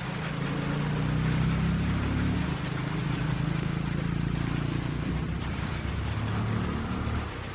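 A motor engine running with a steady low hum. It grows louder over the first second or so and drops off near the end.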